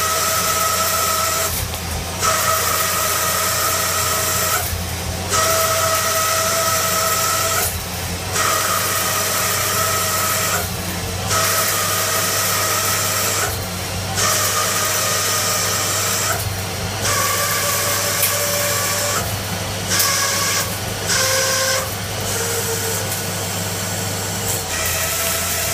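CNC lathe turning a metal shaft in successive passes: a steady hiss with a whining cutting tone during each pass, broken about every three seconds by a brief drop as the tool comes off the cut, over a steady low hum. The whine's pitch changes from pass to pass.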